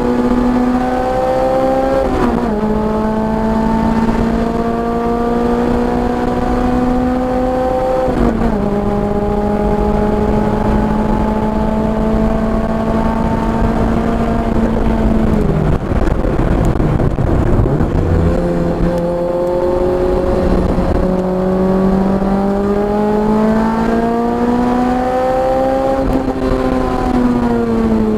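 Car engine under hard acceleration on a racetrack, heard from inside the car. The revs drop sharply about 2 and 8 seconds in as it shifts up, hold nearly steady, then fall away with rough, uneven running around the middle as it slows for a corner. They climb steadily again, with another shift near the end.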